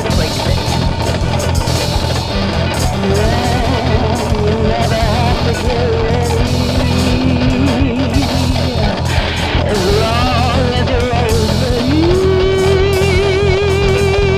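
Rock band playing: drums, bass and guitars, with a melodic lead line that wavers through the middle range, slides up near the end and holds one note with vibrato.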